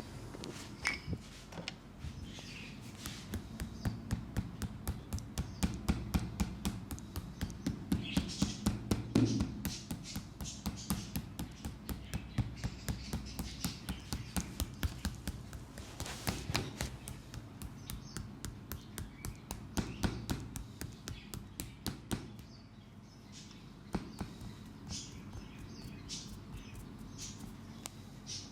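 Rapid percussive massage strokes: hands tapping and chopping in quick succession, about four strokes a second. The strokes are louder through the first third and then carry on more lightly.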